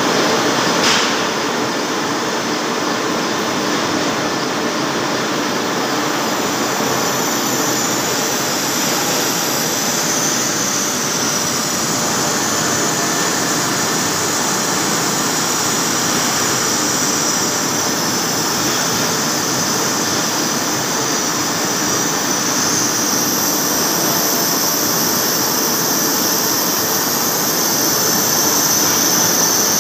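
CNC lathe turning a large metal roll, its tool cutting into the surface: a steady, loud machining noise with a high hiss over it, and a single click about a second in.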